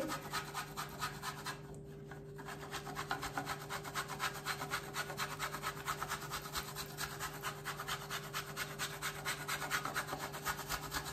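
A bar of chocolate grated on a metal box grater: quick, repeated rasping strokes, with a brief pause about two seconds in.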